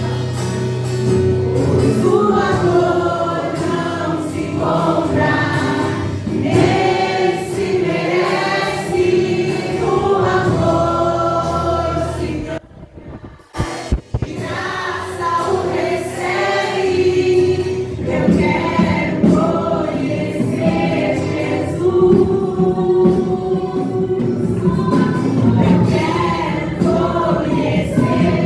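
Gospel worship song sung by a group of voices over instrumental backing. The sound drops away briefly about halfway through, then the singing resumes.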